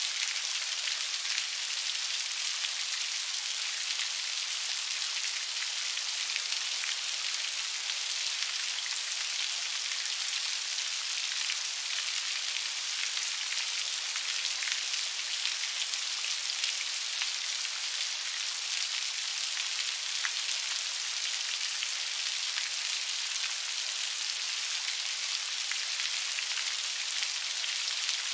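Steady rain falling, a dense even patter of many small drops, hiss-like and without low rumble.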